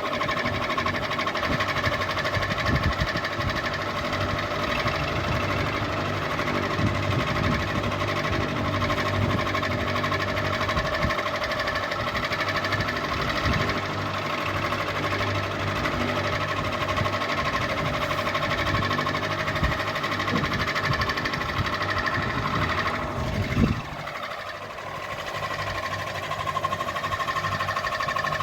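Ceiling fan running, a steady motor hum with a rough low rattle. About 24 seconds in there is one sharp knock, after which the low rattle drops away and only the hum carries on.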